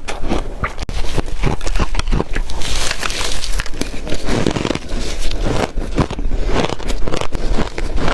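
Ice being bitten and chewed close to the microphone: a fast, uneven run of crunching clicks and crackles.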